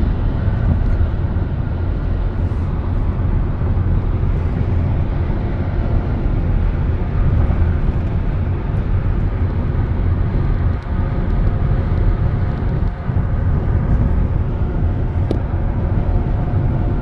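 Steady low rumble of a vehicle in motion, road and engine noise as heard from inside, unbroken throughout.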